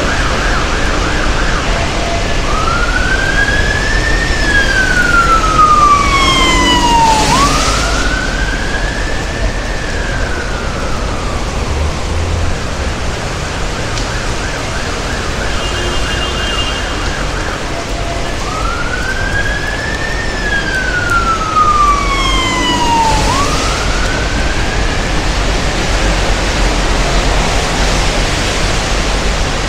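Emergency vehicle siren in wet city traffic: a wail that rises quickly and falls slowly, sounding twice in each of two spells, with a faster warbling yelp between them. Steady rain and traffic hiss run underneath.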